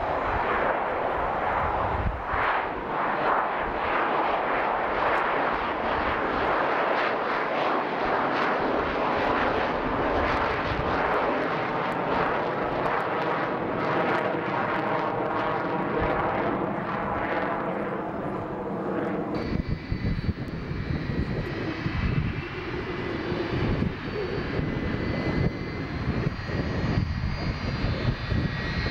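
Jet roar of a Boeing 727 climbing out after takeoff: a broad rush with a slowly sweeping, phasing tone as it passes overhead and draws away. About two-thirds through it cuts to a Lockheed L-1011 TriStar's Rolls-Royce RB211 turbofans at low power on the ground: steady high whistling whine over a low rumble.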